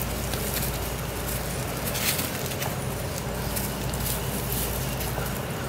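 Rustling and crunching of wood-chip mulch as a Weimaraner puppy pushes and mouths a ball across it, with a sharper crunch about two seconds in, over a steady low hum.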